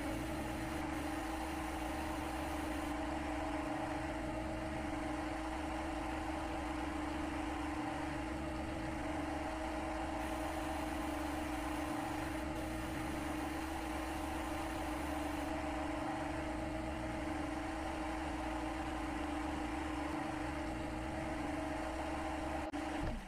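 Steady mechanical hum: a constant low rumble with a couple of steady tones, unchanging throughout, like a machine or motor running at constant speed.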